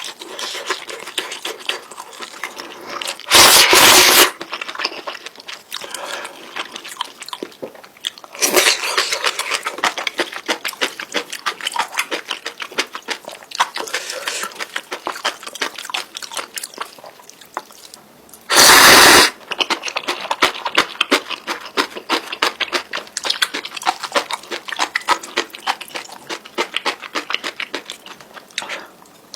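Close-miked eating of spicy instant noodles: continuous wet chewing and mouth clicks, broken twice by a loud slurp of noodles lasting about a second, a few seconds in and again at about the middle.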